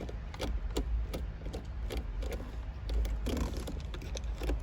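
Scattered light clicks, taps and scrapes of hand tools and car interior parts being handled, irregularly spaced, over a steady low hum.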